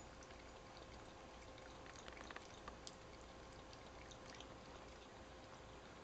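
An elderly tabby cat lapping water from a bowl: faint, quick wet clicks, thickest a couple of seconds in, over a steady low hiss.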